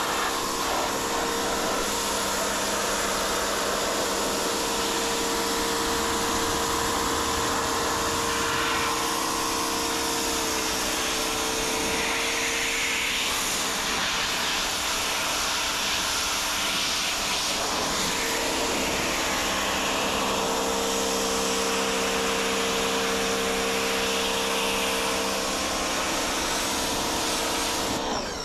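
Craftsman 1700-PSI electric pressure washer running, its motor and pump giving a steady hum under the loud hiss of the water jet as it blasts dirt out of the edges and crevices of a car's bodywork. It cuts off abruptly just before the end.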